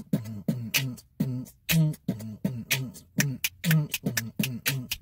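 Beatboxing: short hummed vocal notes alternating with sharp mouth-percussion clicks in a steady rhythm, about three to four sounds a second.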